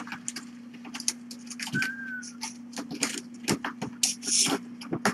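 Rapid, irregular clicks and scratchy taps over a steady low hum, with one short high squeak about two seconds in.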